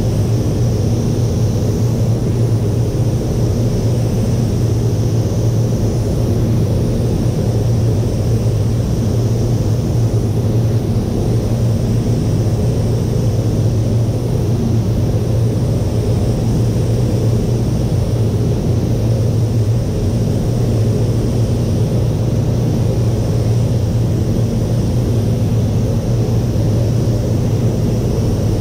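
Paint spray booth ventilation fans running, a steady rush of moving air over a low hum.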